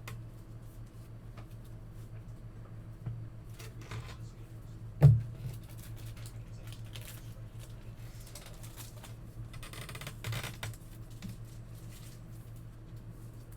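Trading cards being handled and sorted on a table: light rustling and clicking, with one sharp knock about five seconds in, over a steady low hum.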